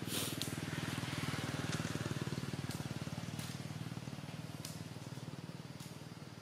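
An engine running steadily with a low, fast pulse, loudest over the first two seconds and then slowly fading, with a few sharp clicks scattered through it.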